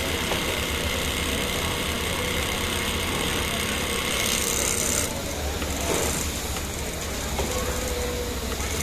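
Industrial single-needle lockstitch sewing machine running, stitching piping onto a garment facing through a folder attachment, over a steady motor hum. The higher part of the machine noise thins about halfway through.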